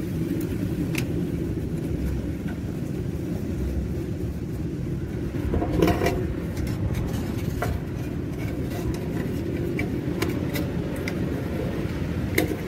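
Light clicks and metallic knocks as a fuel gauge sender unit is unplugged and pulled out of a diesel fuel tank, bunched together about six seconds in, over a steady low rumble.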